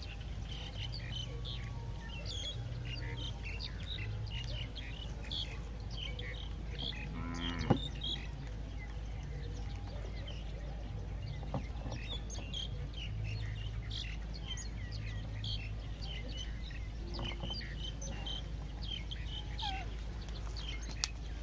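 Many small birds chirping densely over a steady low hum, with one sharp click about eight seconds in.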